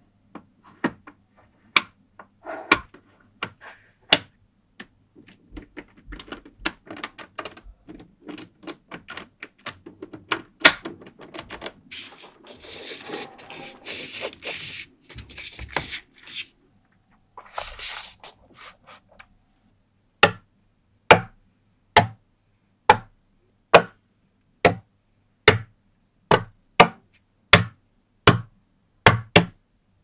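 Small magnetic balls clicking against each other as hexagonal tiles built from them are set down and pushed together, with spells of rubbing and sliding over the surface. About two-thirds of the way in this turns into a steady run of sharp clicks, a little more than one a second, as rings of magnetic balls are snapped onto columns.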